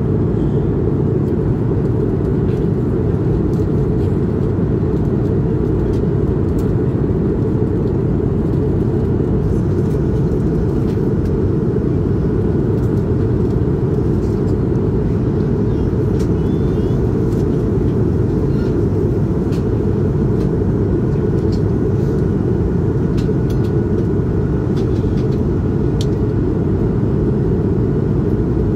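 Steady cabin noise of an Airbus A220-300 in flight, heard from a window seat near the back: its Pratt & Whitney PW1000G geared turbofans and the rushing air make an even, low rumble.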